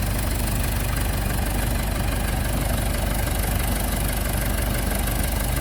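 Ford 755B backhoe's diesel engine idling steadily.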